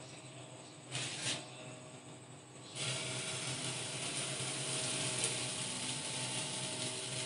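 Pancake frying in butter and oil in a pan: a steady sizzle that sets in suddenly about three seconds in.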